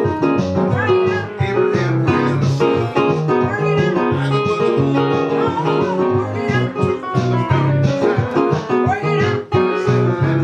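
Guitar music, with plucked notes changing in quick succession.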